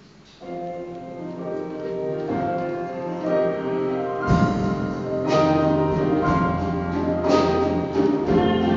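A church music group's instrumental introduction, with guitar, bass guitar and drums, begins about half a second in and builds. From about four seconds in it is fuller, with a heavier bass and sharp drum hits.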